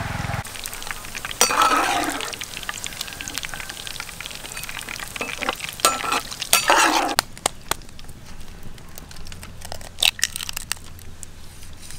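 Hot oil sizzling in a wok as a metal ladle stirs and clinks in it, quietening about seven seconds in to sparse small clicks.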